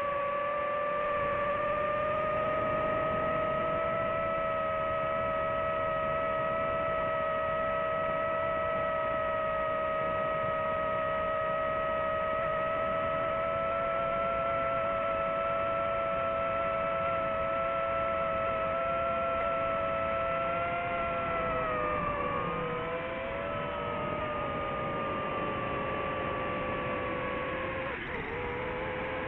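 DJI FPV drone's motors and propellers whining steadily, two held pitches with fainter overtones over a rushing hiss. The pitch sags and splits about three quarters of the way through as the motors change speed, with another brief dip near the end.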